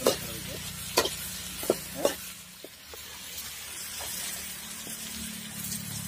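Sliced onions and tomatoes sizzling as they fry in a metal kadai. A ladle clacks and scrapes against the pan as they are stirred, with several sharp knocks in the first two seconds.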